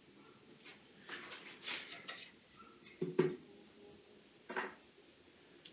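Mahogany boards handled on a wooden workbench: brushing and sliding of wood on wood, then a board set down with a knock about three seconds in, and a brief scrape near the end.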